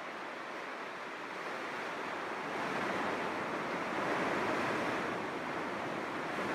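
Steady wash of ocean surf, swelling a little partway through.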